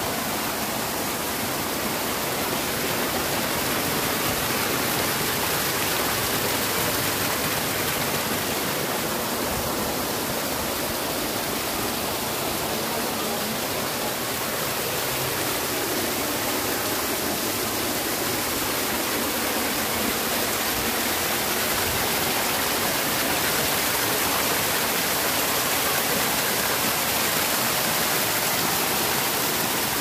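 Small mountain waterfall pouring over a rock wall and splashing into a shallow pool: a steady, even rush of falling water.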